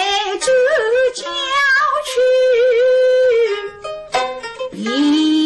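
A woman singing a Suzhou tanci (pingtan) aria in long, wavering held notes, with plucked pipa notes between phrases. The voice pauses briefly about four seconds in for a few pipa strokes, then slides up into the next note.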